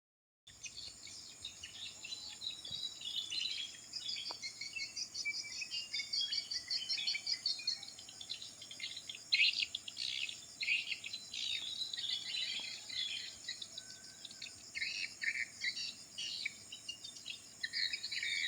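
Several small birds chirping and trilling densely and rapidly, over a steady high-pitched insect drone. The sound drops out for half a second at the very start.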